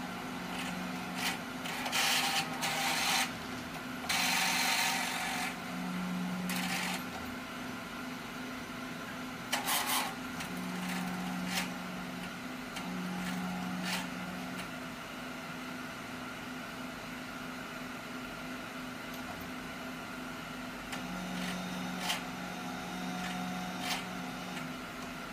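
Large-format inkjet printer running a printhead cleaning cycle: a steady mechanical hum, with the ink pump motor at the capping station starting and stopping in spells of a few seconds as it draws ink through the head. Short whirring runs of a mechanism and a few clicks come about two seconds in, around four to five seconds, and near ten seconds.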